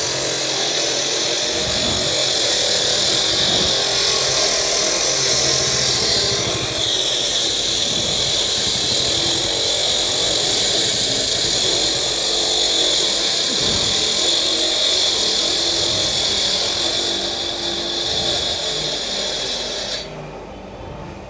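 Electric walk-behind concrete cutter, a 10 hp three-phase motor driving a 14-inch blade, sawing a wet concrete slab: a steady, loud, high grinding whine of blade on concrete. About twenty seconds in, the sound drops off abruptly and becomes much quieter.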